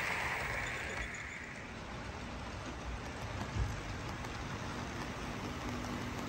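HO scale model trains rolling on the layout's track: the rushing wheel noise of passing Budd RDC railcars fades away over the first second or two, leaving a low background haze. Near the end a low steady hum comes in as the next train, led by Alco RSD-4 diesels, arrives.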